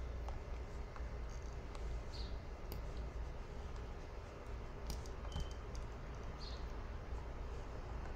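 Scattered light clicks and taps from a pen on a drawing tablet, a few spread irregularly with a quick cluster about five seconds in, over a steady low hum.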